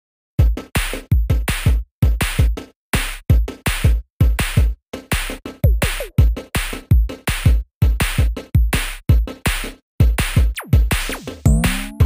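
Electronic background music: a drum-machine beat of deep kicks and sharp hits, chopped by short gaps of silence about once a second, with a rising pitched sweep near the end.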